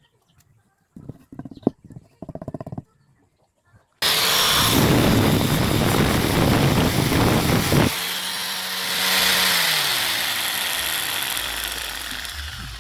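A loud power tool starts abruptly about four seconds in and runs with a dense, harsh noise. Its sound thins and eases off somewhat after a few more seconds.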